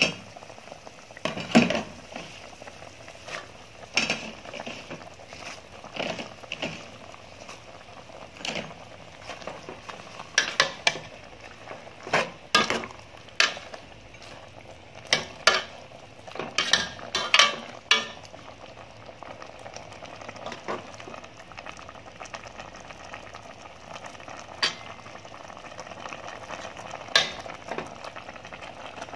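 Pot of vegetable soup simmering with a steady bubbling hiss while a metal spoon stirs it, clinking against the pot many times, most often in the middle stretch.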